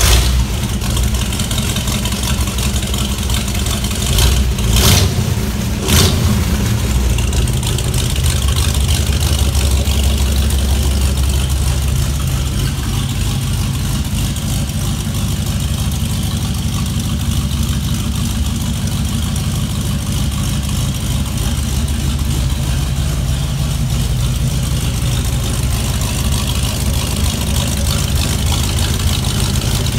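Rat rod truck's engine running steadily, with two brief sharp knocks about five and six seconds in.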